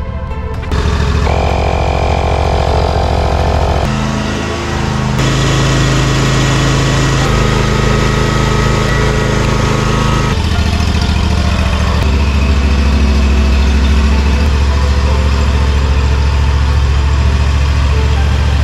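Kawasaki FS600V V-twin engine on a zero-turn mower running steadily, in several short spliced takes with sudden jumps in pitch between them.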